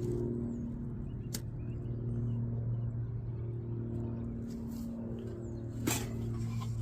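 A steady low mechanical hum from a running motor, with two sharp clicks, one just over a second in and a louder one near the end.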